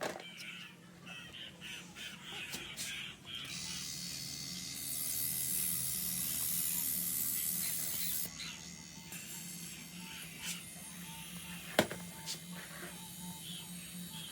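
A steady, high hiss starting a few seconds in and lasting about five seconds, over faint background music, with a sharp click about two-thirds of the way through.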